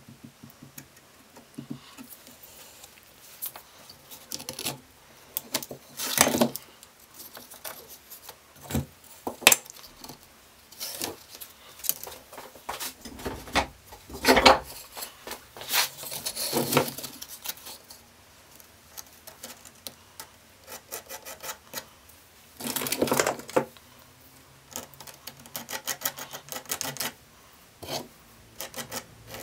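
Hand work on sandpaper: irregular scraping and rubbing on the abrasive paper, with scattered clicks and knocks of tools and wood pieces being handled.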